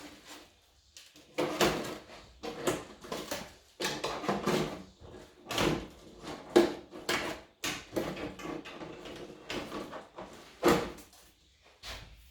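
Hands handling hard objects on a bench: an irregular run of knocks, clatters and rustles, some short and sharp, a few louder clacks about 6.5 and 10.5 seconds in.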